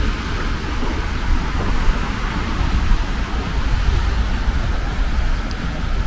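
Wind rumbling on the microphone over a steady hiss of surf breaking on a sandy beach.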